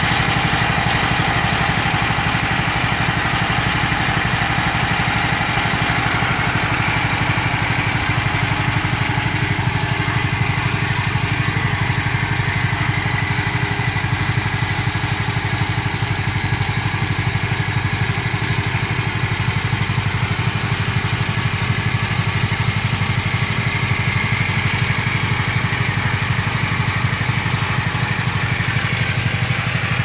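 Small 7 hp engine on a portable milking machine, running steadily at an even speed to drive the vacuum pump.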